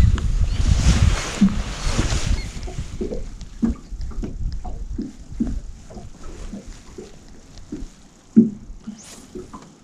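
Water lapping and knocking against a small fishing boat's hull, with wind buffeting the microphone for the first couple of seconds, then a string of short, irregular knocks and slaps.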